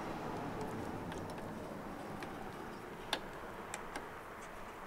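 A handful of light clicks and ticks from a propane hose's metal fitting being threaded by hand onto the gas inlet of a Mr. Heater BOSS portable water heater, the clearest about three seconds in, over a faint steady background hiss.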